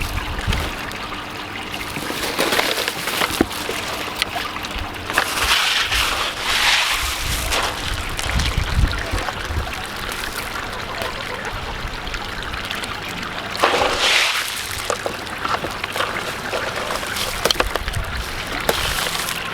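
Water trickling and sloshing in an aquaponic grow bed, with several louder bursts of splashing and rustling as hands dig through the wet grow media and pull out sweet potato roots.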